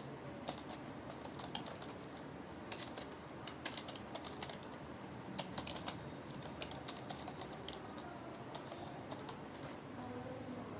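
Computer keyboard being typed on at an unhurried pace: irregular single key clicks, a few a second, that thin out near the end.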